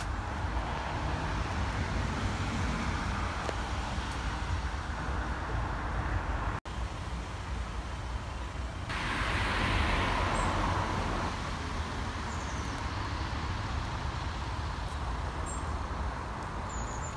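Steady road traffic noise with a low rumble underneath; one vehicle passes, swelling louder about nine to eleven seconds in.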